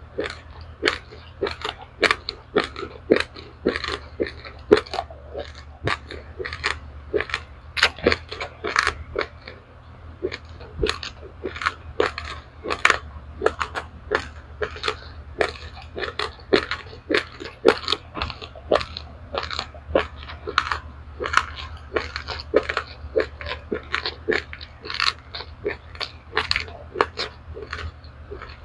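A person chewing a mouthful of dry-roasted raw rice, mixed white and black grains, with rapid irregular crunches several times a second over a steady low hum.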